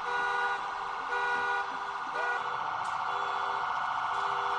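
Electronic vehicle alarm sounding. It pulses in beeping tones about twice a second, then about halfway through switches to a continuous warbling tone.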